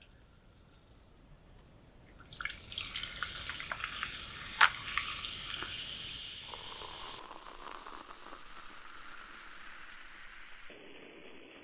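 Wet crackling and clicking of sauce-coated seafood being handled, starting about two seconds in, with one sharp crack near the middle, then settling into a softer, steady wet sizzle.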